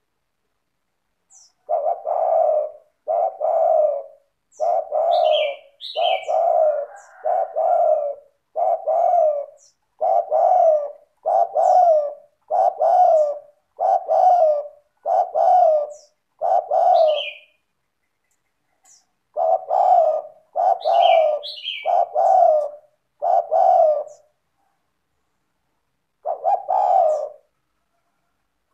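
Spotted dove (tekukur) singing: a run of cooing calls about one every 0.8 s, broken by two short pauses, one about two-thirds of the way through and one near the end. A few thin, high chirps sound between some of the coos.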